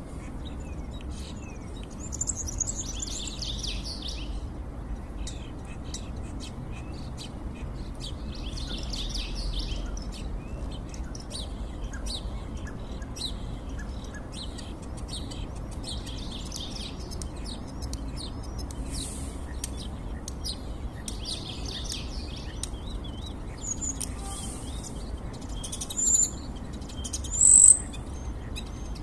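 Starling singing: bursts of rapid high chattering and warbling phrases every few seconds, ending with two loud, sharp high notes.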